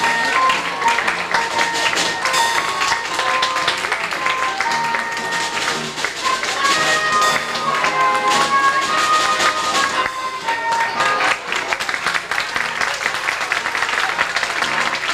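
Music with a clear melody of held notes over busy clicking percussion, played for a children's stage act.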